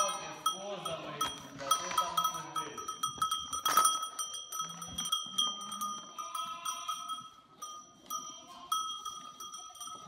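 Herd of goats feeding from a bucket: goats bleating, with many small clicks and knocks and a steady bell-like ringing throughout.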